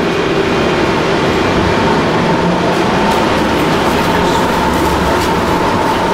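Airport tram running, heard from inside the car: a steady rumble and hiss, joined about a second and a half in by a steady high whine.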